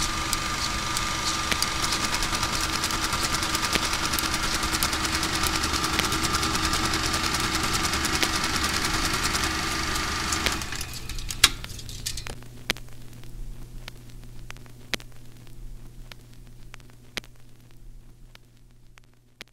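A dense, steady mechanical drone with a held high tone and crackling clicks cuts off about ten seconds in. It leaves a low hum and scattered clicks that fade away toward the end.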